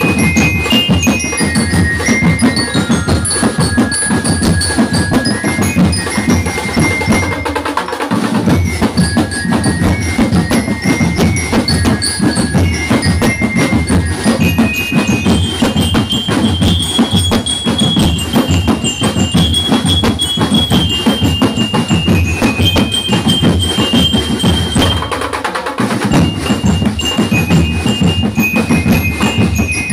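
Drum and lyre band playing: bell lyres ring out a stepwise melody over steady drumming. The low drums drop out briefly twice.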